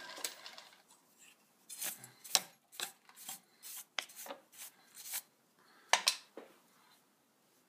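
Drill press motor dying away, then a hand sweeping steel drilling chips off the angle iron and the drill press vise: a run of quick metallic scrapes and clinks, loudest about six seconds in.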